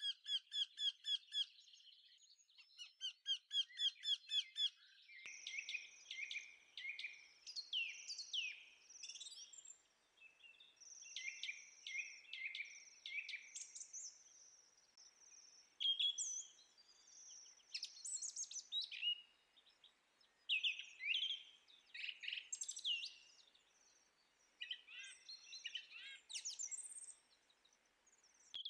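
Birds singing: a fast, evenly repeated trill for the first few seconds, then a run of varied chirps and whistles.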